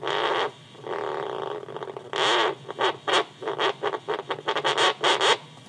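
Doppler beat tone from a homemade 10 GHz microwave radar, played through an amplified speaker as a reflective board moves in front of its horns; the pitch follows the board's speed. It warbles in two longer stretches, then breaks into a quick run of about a dozen short bursts.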